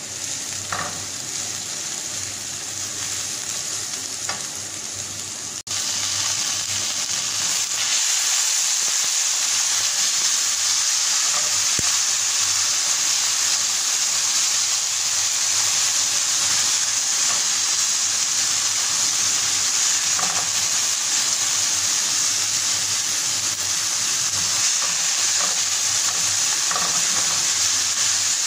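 Diced carrot, onion and tomato sizzling in oil in a non-stick frying pan as a spatula stirs them, with a few light scrapes of the spatula on the pan. The sizzle gets louder about six seconds in.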